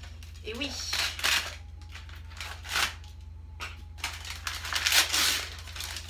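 Kraft paper gift wrapping rustling and crinkling as it is pulled open by hand, in several bursts, the longest and loudest about five seconds in.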